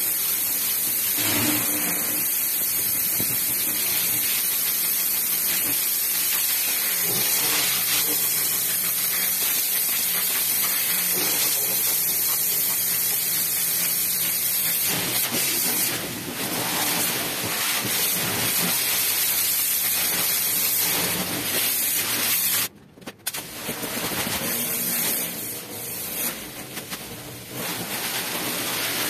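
Pressure washer spraying water, a steady hiss of the high-pressure jet that cuts off briefly about three-quarters of the way through, then resumes.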